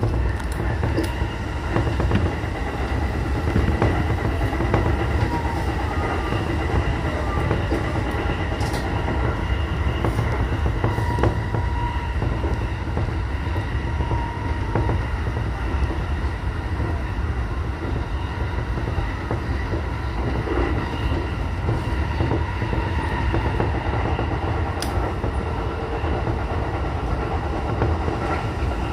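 Sotetsu electric commuter train running at speed, heard from inside the leading car: a steady low rumble of wheels and motors on the track, with a few sharp clicks from the rails.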